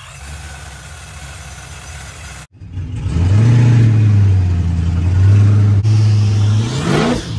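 LS V8 engine running: quieter at first, then after a cut heard loud from inside the car's cabin, holding a steady pitch before revving up briefly near the end.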